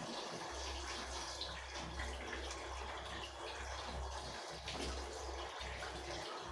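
Faint running water, as from a tap, with a low steady hum underneath.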